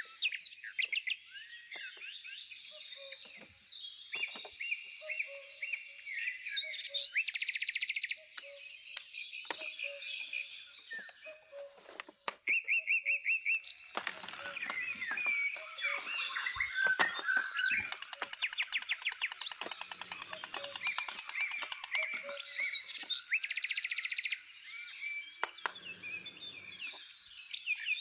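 Several birds chirping and singing together, in overlapping whistles and trills, with a fast buzzy trill between about 18 and 22 seconds in.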